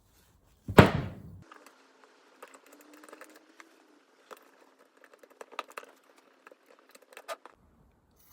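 A loud thud about a second in, then scattered small clicks and rattles of hand tools and hardware being handled.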